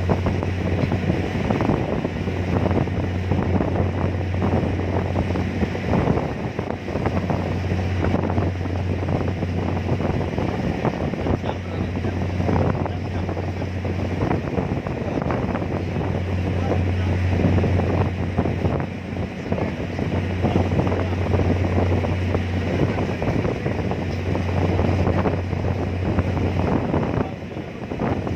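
Ferry engine running with a steady low hum under strong wind buffeting the microphone; the wind dies down briefly near the end.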